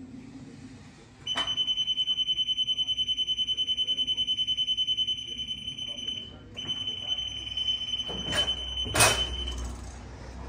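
Skyjack SJIII 4626 scissor lift's descent alarm: a high, rapidly pulsing beep that sounds while the platform is lowered, with a short break partway through. Two clunks come near the end as the platform comes down to its stowed position.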